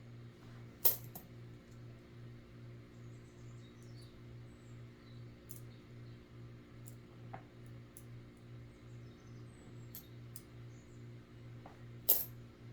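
Pennies being handled: a few light clicks, with two sharp ones about a second in and near the end. Under them runs a steady low electrical hum that pulses a little over twice a second.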